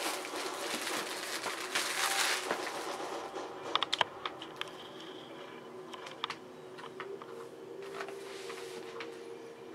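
Clear plastic shrink-wrap crinkling as it is pulled off a cardboard laptop box for the first two seconds or so. Then scattered light taps and clicks of hands handling the box, over a faint steady hum.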